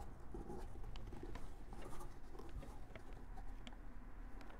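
Hands handling a leather work boot: faint, scattered light clicks over a low steady hum.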